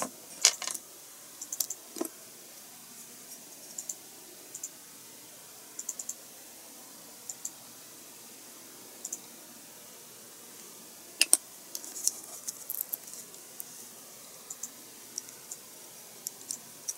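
Small, sharp, irregular clicks and taps of plastic model-kit engine parts being handled and fitted together, with a louder couple of clicks about eleven seconds in.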